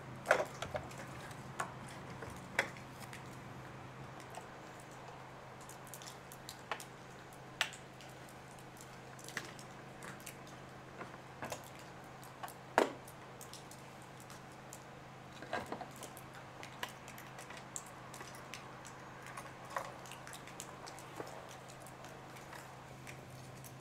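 Scattered light clicks and knocks of a chainsaw and plastic fuel canisters being handled, over a steady low hum.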